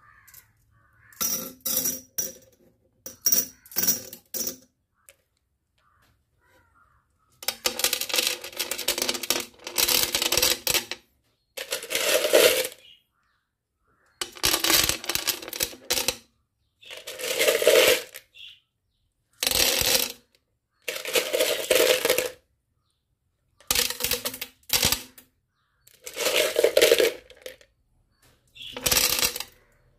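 Handfuls of coloured glass pebbles and aquarium stones clattering and clinking into a glass fish tank, in a dozen or so bursts of a second or two each with short pauses between.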